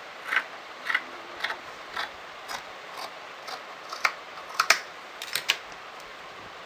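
Tailor's scissors cutting through light cotton fabric: a run of about a dozen short, crisp snips, roughly two a second, that stops about five and a half seconds in.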